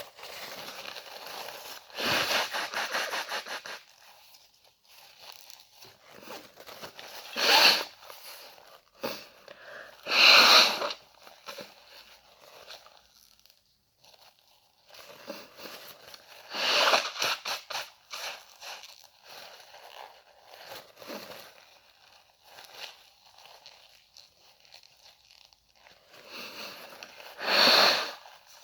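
A person blowing their nose hard into a tissue about five times: a long, fluttering blow a couple of seconds in, then shorter, sharper blows, with quieter tissue rustling in between.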